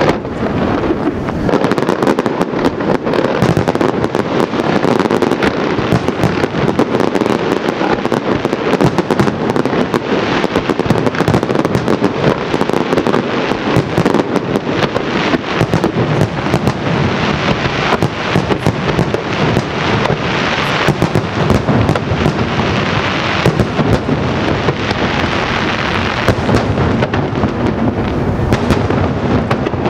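Daytime fireworks barrage: shells bursting into smoke in a rapid, continuous stream of bangs and crackle, too many to count, with no let-up.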